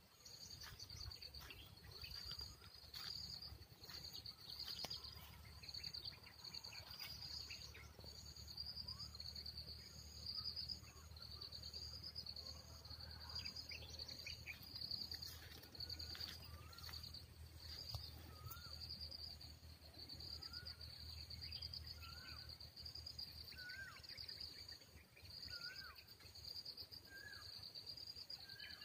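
Faint outdoor chorus: an insect chirping in a high, even pulsing rhythm, with a bird from about halfway repeating a short upward-hooked call roughly every second and a half, over a low rumble of wind or handling noise.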